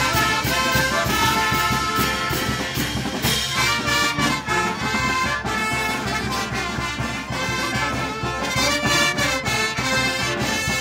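Peruvian street brass band playing live: trumpets, trombones and saxophones carry the tune over tubas, a pounding bass drum, snare and crashing cymbals in a steady dance rhythm.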